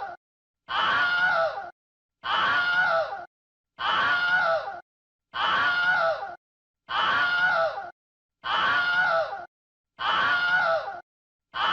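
A person's scream, the same short scream repeated about every second and a half, each lasting about a second with a brief silence between.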